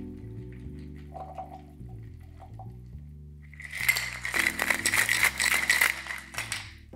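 Ice rattling inside a metal cocktail shaker: a fast, loud clatter of about three seconds, starting about halfway in. Soft background music plays underneath.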